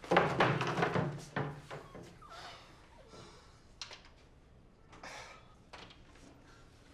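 A door being banged and shoved: a quick run of heavy thuds in the first second and a half, then scattered quieter knocks.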